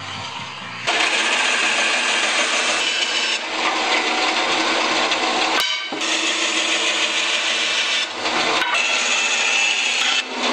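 Bandsaw cutting a poplar board: a loud, steady sawing noise of the blade running through the wood. It starts about a second in, cuts out completely for an instant near the middle, and dips briefly twice more.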